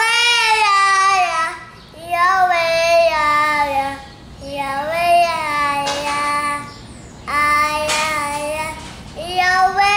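A young child singing a capoeira song alone, in short melodic phrases of about two seconds with a breath between each.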